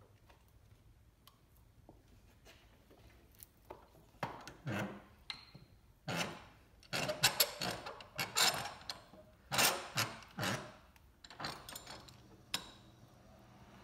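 CV axle being set and clamped by its rubber boot in a bench vise: irregular scraping, rubbing and clunks of metal on metal as the axle is positioned and the vise handle turned. The noises start about four seconds in and are loudest in the middle, then die away.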